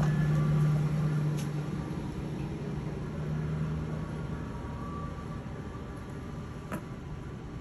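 Low, steady hum of a motor vehicle's engine that fades away over the first four seconds, over outdoor traffic noise, with a single sharp click near the end.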